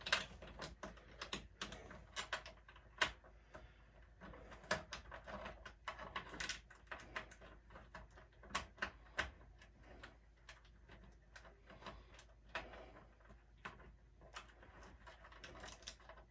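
Faint, irregular metallic clicks and taps of a cable knockout connector being fitted and screwed on by hand in a hole in a metal electrical service panel.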